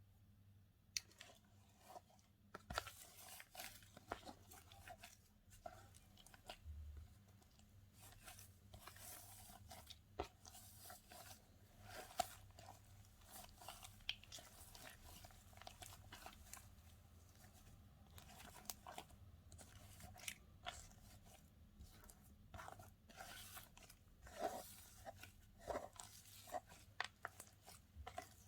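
Slime being kneaded and poked by hand, making faint, irregular crackles and clicks.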